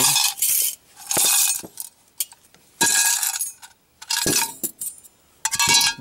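Metal clinking and rattling in about five short bursts as a bulged AK-47 magazine, loose 7.62×39 cartridges and torn cartridge casings are handled.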